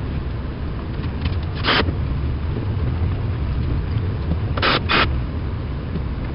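Workshop noise: a steady low rumble with three short, sharp noisy bursts, one about a second and a half in and a quick pair close together near the end.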